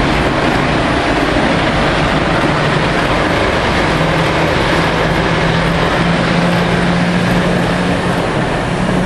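Lionel O gauge model train running on the layout's track, a steady rolling rumble and rush of noise. A steady low hum joins about four seconds in.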